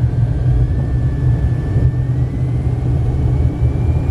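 Car moving slowly, heard from inside the cabin: a steady low rumble, with a faint thin whine that slowly rises in pitch.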